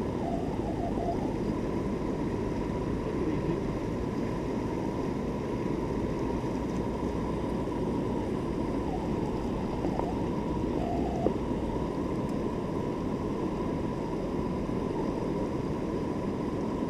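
Steady rush of a shallow river flowing over stones and riffles, heard close by from where the angler stands in the water.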